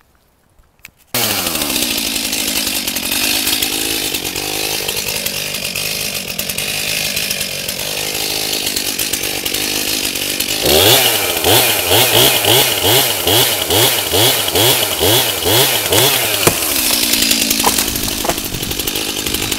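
Backup chainsaw cutting into a dead leaning tree to finish the felling. It starts abruptly about a second in and runs under load. About halfway through, its pitch rises and falls about twice a second for several seconds, then it runs steady again.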